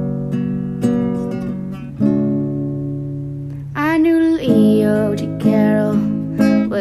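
Acoustic guitar strumming sustained chords, struck about once a second. From about four seconds in, a solo voice sings over the guitar.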